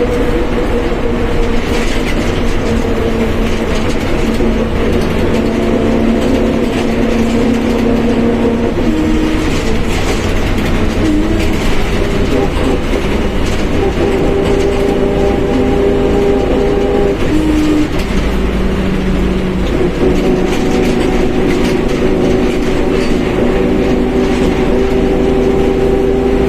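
Mercedes-Benz OF1721 BlueTec 5 bus driving, its diesel engine running under a steady low rumble while the differential gives off steady whining tones that shift pitch several times as the speed changes.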